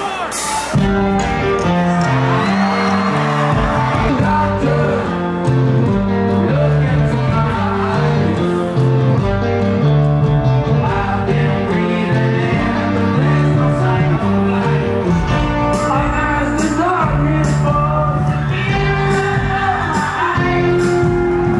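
Rock band playing, with electric guitars, bass, drums and a male lead singer, coming in loudly about a second in after crowd cheering.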